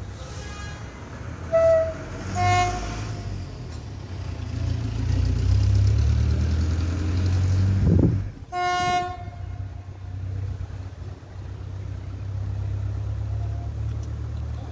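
Locomotive horn giving short blasts while the locomotive is shunting: two close together about two seconds in and another about nine seconds in. A steady low rumble from the train runs under them.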